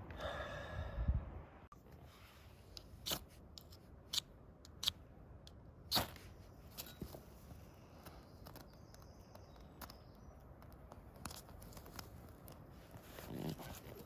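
A few sharp, irregular cracks and scrapes, the loudest about six seconds in, from handling kindling while lighting a campfire.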